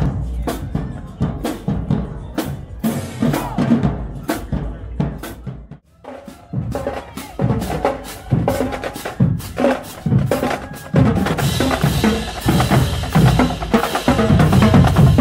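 Marching band drumline playing a cadence: snare drums, bass drums and crash cymbals striking in rhythm. It breaks off briefly about six seconds in, then comes back busier and louder, with cymbals washing over the drums from about eleven seconds in.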